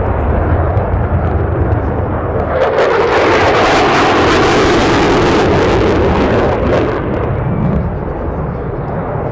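Jet aircraft flying past, a rushing roar that swells to its loudest about three to seven seconds in and then fades.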